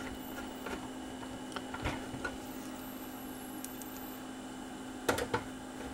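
Faint small clicks and scrapes of a hand screwdriver turning screws into a CD player's metal back panel, with a short cluster of sharper clicks about five seconds in, over a steady low hum.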